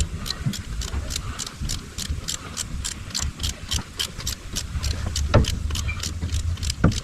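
Ratchet wrench clicking steadily, about four clicks a second, as a fastener is turned. A low steady hum runs underneath, and two louder knocks come near the end.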